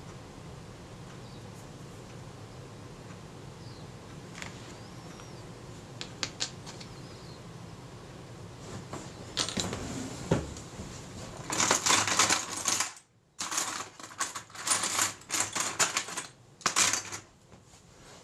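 A few light clicks and a single knock, then several seconds of rapid clicking and rattling in bursts: small camera parts and tools being handled on a workbench.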